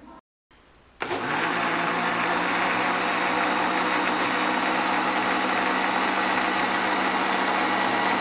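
Electric blender motor switched on about a second in and running at one steady speed with an even hum, mixing pizza batter.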